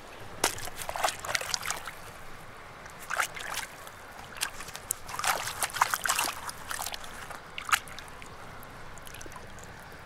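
A gloved hand sloshing and splashing in shallow stream water while digging a rock out of the mud, with many irregular short splashes over the steady trickle of the flowing stream.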